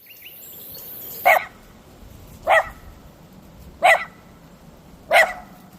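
A dog barking four times, one short bark about every second and a quarter.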